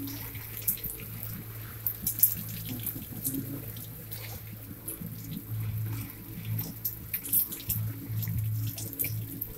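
Rain and hail striking the window and house, heard from indoors as irregular sharp ticks and taps over a soft hiss, with a steady low hum underneath.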